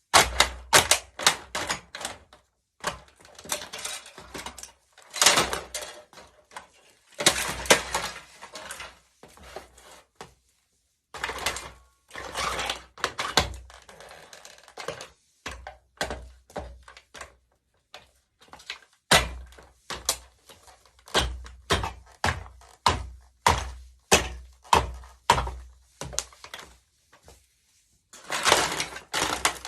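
Hard plastic of a remote-controlled toy car cracking and crunching under high heels, with sharp knocks. A run of regular heavy stomps comes about two-thirds of the way through.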